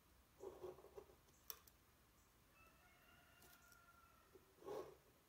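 Near silence: faint scratches of a pen drawing along a plastic curve template on paper, with a single light click about a second and a half in and a faint drawn-out tone in the middle.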